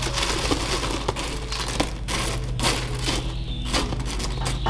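Freshly fried potato sticks tumbling out of a wire mesh strainer onto paper towel: a run of irregular crisp taps with paper crinkling.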